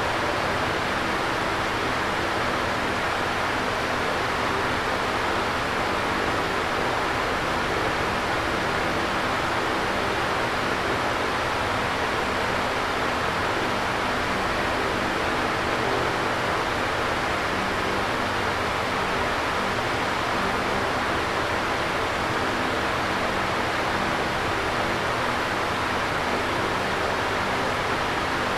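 Electric fan running with a steady whooshing noise and a faint, constant motor hum underneath.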